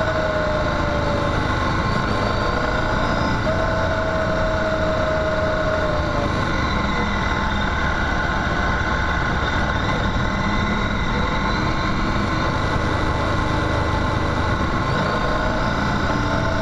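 Motorcycle engine running steadily while riding along a gravel road, mixed with wind and road noise.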